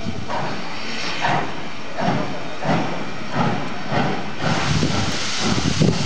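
Prussian T 9.3 steam tank locomotive 91 134 pulling away, its exhaust chuffing a little faster with each beat as it gathers speed. Past the middle a loud hiss of steam sets in over the chuffs.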